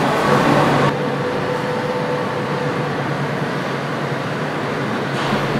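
A steady, fairly loud rumble with a low hum underneath, like machinery or a train; it drops a little and changes character about a second in.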